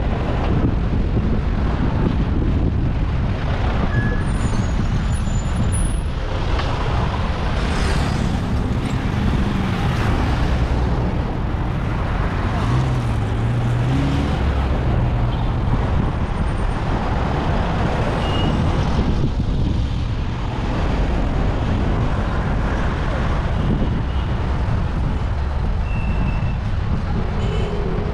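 Road traffic heard from a moving bicycle: motor vehicles running close by, over a steady rush of wind on the camera's microphone. A vehicle engine's low hum rises and falls about eight to fifteen seconds in.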